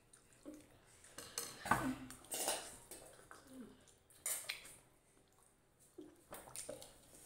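Forks clinking and scraping on plates while noodles are eaten, a scatter of short clicks and knocks with brief slurping and chewing sounds between them.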